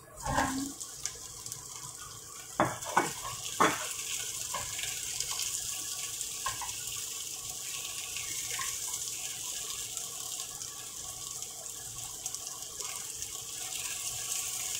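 Pieces of fried tofu sizzling with shallots in a hot frying pan as they are tipped in and stirred, a steady hiss. A few sharp knocks of the tofu and wooden spatula against the pan in the first four seconds.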